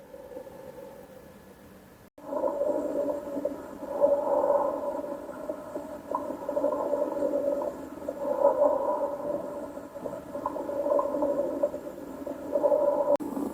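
Simulated lung sounds: a continuous, musical wheeze carried on the breathing, swelling and fading with each breath about every two seconds. It begins about two seconds in, after a faint lead-in.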